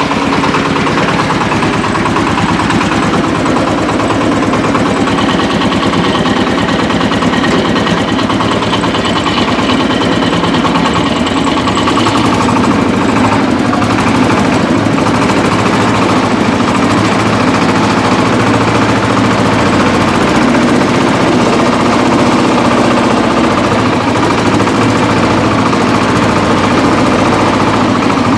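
Shifeng 240 belt-drive mini tractor's single-cylinder diesel engine running steadily and hard, pulling a two-bottom plough through heavy, compacted ground.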